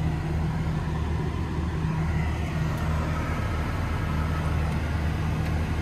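Audi S6 engine idling steadily with an even low hum, heard from inside the cabin.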